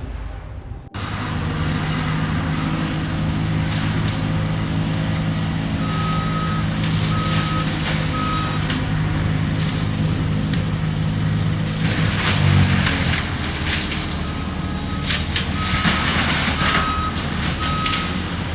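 ASV RT-120 tracked skid steer's diesel engine running hard with its forestry mulcher, starting about a second in. Its reversing alarm beeps three times near the middle and again in a steady run near the end, while wood crackles and splinters under the mulcher.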